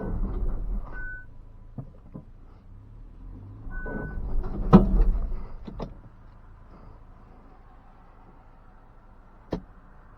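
Knocks and clunks from a vehicle, with two short high beeps like a door chime, and a loud heavy thump about five seconds in, like a door shutting. A low rumble stops at about six seconds, and a single knock comes near the end.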